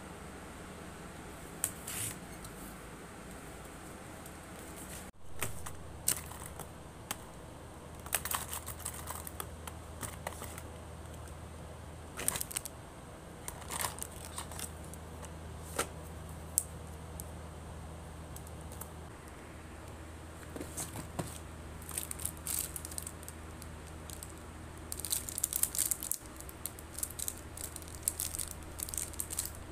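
Order packing by hand: packaging crinkling and tearing in short spells, with scattered small clicks and taps of items being handled, over a low steady hum. The handling gets busier near the end.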